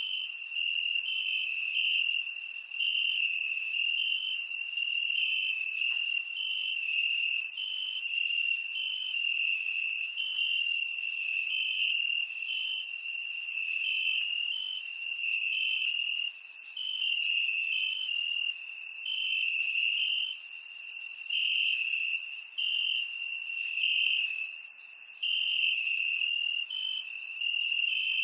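Crickets chirping: a continuous high-pitched trill, with a slightly higher note pulsing on and off over it.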